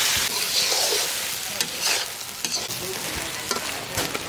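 Tangra fish curry sizzling as it fries in a pan while being stirred, with a steady sizzle and a few sharp clicks of the utensil against the pan.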